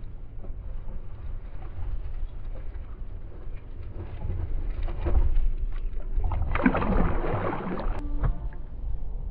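Large hooked carp splashing and thrashing at the water surface while being played on the line, over a steady low rumble. The loudest splashing comes about two-thirds through, lasts about a second and a half, and stops abruptly.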